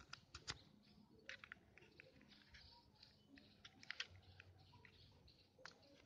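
Faint, irregular plastic clicks and rattles as a TV remote and a bottle are handled close by.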